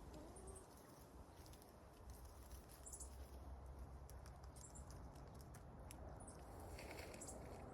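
Near silence: faint garden ambience with short, high chirps repeating every second or so and a few faint ticks.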